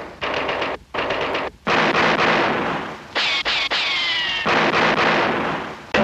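Cartoon sound-effect library takes of rapid machine-gun fire, played as several short bursts with brief gaps between them. In the middle one take carries a falling whine over the shots.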